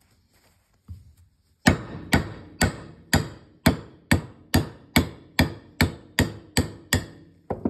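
Hammer striking a metal mandrel to drive a rotary lip seal into a tractor PTO nose casting: about fourteen sharp metallic strikes, roughly two a second, each with a brief ring, starting about a second and a half in. The seal is being driven home but is not yet fully seated.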